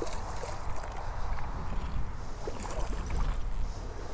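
Small waves lapping at a stony shoreline, with wind buffeting the microphone in a steady low rumble and a few faint splashes.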